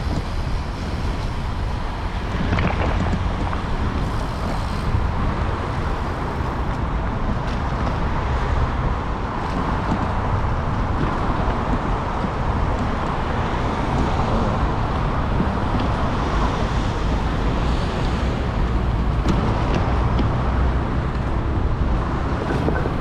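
Steady motor vehicle road noise: an even low rumble with hiss, unchanging throughout.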